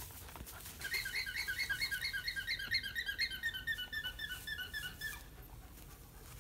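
A rapid run of short, high, squeaky chirps, about five a second for some four seconds, then stopping: an animal's alarm calling, the noise given when a predator is near.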